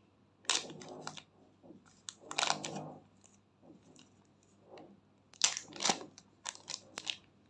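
Clear plastic zip-lock bag crinkling and rustling in the hands as its seal is pulled open, in several short bursts.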